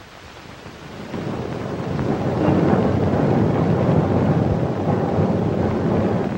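Street crowd hubbub at a theatre entrance: a dense rumbling rush of noise that swells up about a second in, holds, and drops off suddenly at the end.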